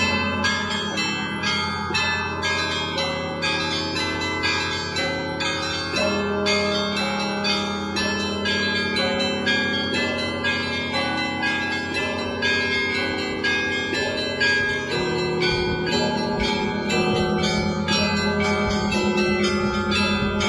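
Russian Orthodox bells of the Spaso-Preobrazhensky bell tower being rung: small bells struck in rapid, continuous patterns over the deeper, sustained ringing of larger bells. The low bell tones change about 6 seconds in and again around 15 seconds.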